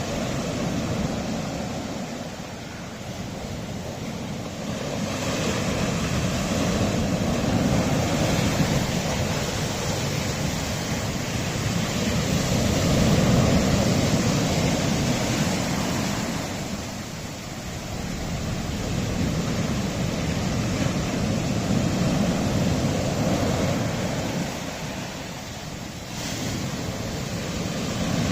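Sea waves washing on a rocky shore: a steady rush of surf that swells and eases in slow surges every several seconds.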